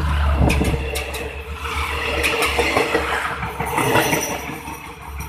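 Passenger train coaches rolling past close by: a steady low rumble of steel wheels on the rails with repeated sharp clicks and clatter, easing off near the end as the last coach goes by.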